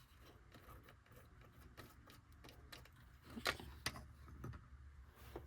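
Quiet handling of small craft items on a table: faint rustling with a few light clicks and taps, the two sharpest about three and a half and four seconds in.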